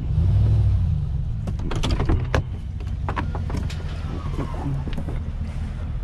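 Pickup truck engine idling as a steady low rumble, with a run of clicks and knocks from the driver's door being unlatched and pushed open from about a second and a half in.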